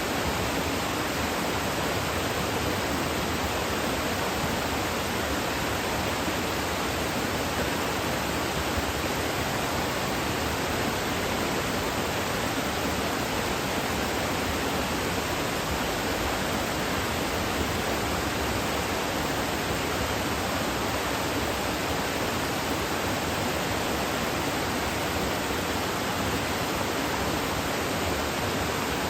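Kuzuryu Falls waterfall: falling water rushing steadily.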